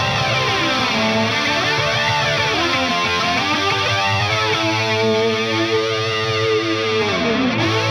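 Epiphone Les Paul Custom electric guitar played through the Hughes & Kettner Coreblade amp's drive channel: overdriven chords and held notes with a modulation effect sweeping up and down about every two seconds.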